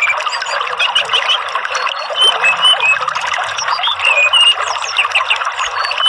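Orange-headed thrush song, many quick chirps and short whistles, over a steady trickle of running water.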